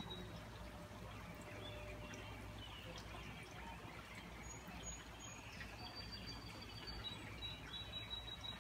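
Faint scattered bird chirps over a steady low background noise.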